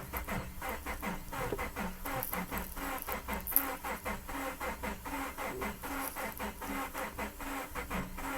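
2011 Subaru Forester's flat-four engine being cranked over by the starter without starting, an even, rapid pulsing that sounds pretty terrible. The engine is a crank-no-start with a camshaft position sensor code, and the owner is sure it is out of time.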